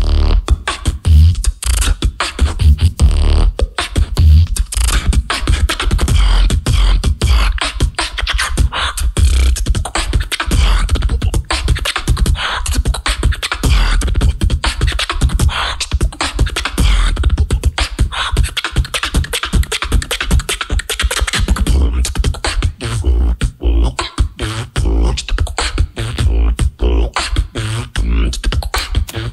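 Solo beatboxer performing a continuous mouth-made beat, with deep bass kicks and a dense run of sharp clicks and snares. Tonal vocal sounds are layered over the beat through the middle stretch.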